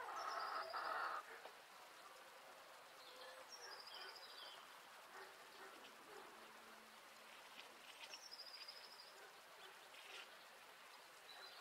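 Birds in a quiet outdoor chicken run: a hen calls in the first second, then a small songbird repeats a short, high, trilled phrase about every four seconds.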